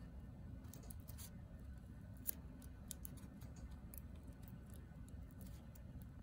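Metal scissors snipping around a coin through several layers of folded aluminium foil: a run of faint, short, crisp snips and crinkles, the sharpest about two seconds in.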